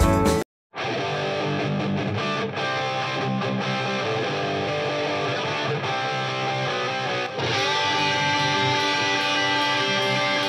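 Background music led by guitar. It cuts out for a moment about half a second in, then a new guitar track starts and carries on.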